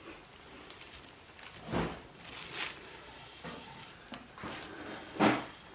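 Soft rubbing and swishing of 550 paracord being crossed and pulled through a Turk's head knot on a paddle grip: a few separate strokes, the loudest near the end.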